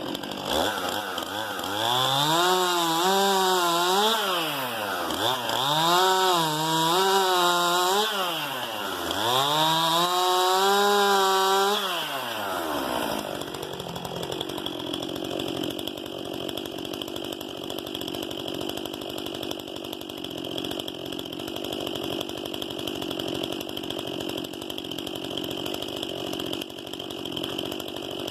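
STIHL MS 261 C-M two-stroke chainsaw revved to high speed three times, the pitch wavering at full revs and dropping between bursts. About thirteen seconds in it falls back to a steady idle.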